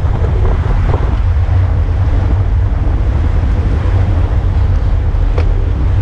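Heavy wind noise buffeting the microphone of a camera riding on a racing bicycle at speed: a steady, loud low rumble, with one faint click about five seconds in.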